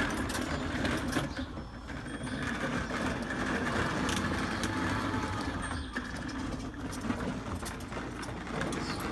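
A small electric motor whirring steadily, with a few light clicks over it.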